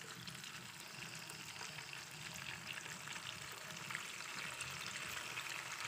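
Salted dried fish sizzling and crackling in a little hot oil in a wok as the pieces are laid in, with many small pops and a slow rise in level.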